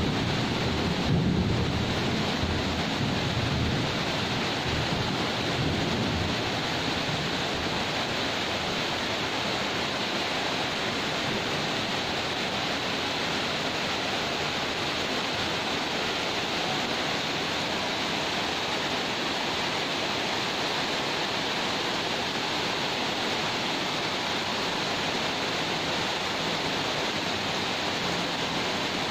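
Heavy tropical downpour: a steady hiss of rain pouring onto roofs, balconies and the street. A low rumble of thunder dies away over the first several seconds.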